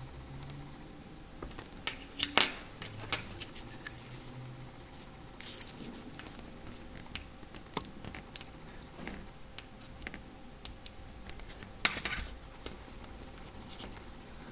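Steel key scraping and clicking against an ADLC-coated steel watch bracelet link in short bursts, the loudest about two seconds in and again near twelve seconds; the hard coating is not scratched, and the key only leaves steel traces on it.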